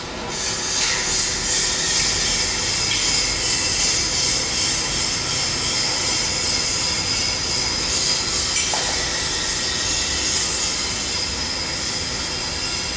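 Steady factory machinery noise: an unbroken hiss with a low hum and a few faint steady tones underneath.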